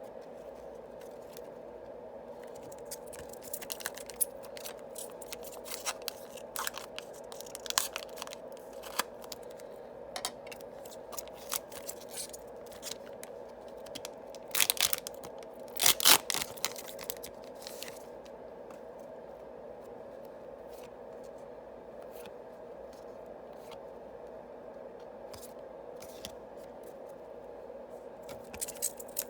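Yu-Gi-Oh! booster packs being opened: the wrappers crackle and tear in scattered bursts, loudest about halfway through, then stop for a long stretch before a few more near the end. A steady faint hum runs underneath.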